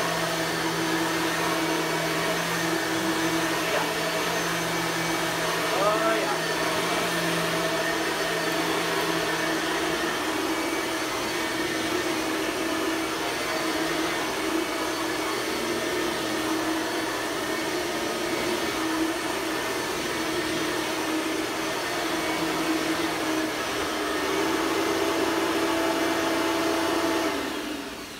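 Blue 1998 Bissell 9-amp upright vacuum cleaner running steadily, a constant motor hum with a rush of air. Near the end it is switched off and the motor winds down.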